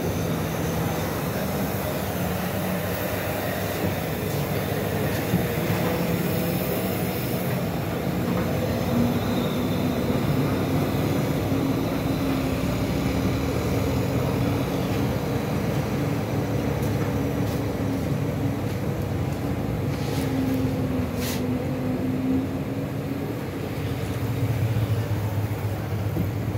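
Heavy diesel truck loaded with concrete piles climbing a steep hairpin in low gear, its engine a steady low drone that rises slightly in pitch about nine seconds in. Other truck engines run alongside.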